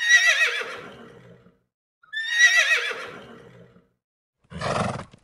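Horse whinnying twice, each call a high, wavering neigh that trails off, about two seconds apart. A short rough burst follows near the end.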